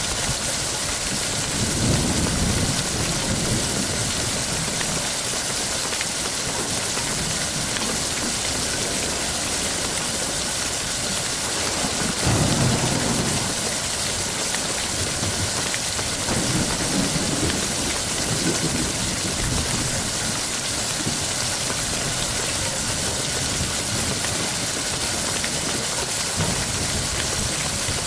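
Steady heavy rain, with low rolls of thunder swelling about two seconds in, louder again around twelve seconds, and more softly a few seconds after that.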